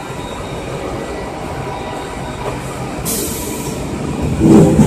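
Automatic potato weighing and bag-packing line running with a steady mechanical clatter, with a short hiss about three seconds in. Near the end the bag-closing sewing machine starts stitching a filled bag, the loudest part, with a pitched motor whine.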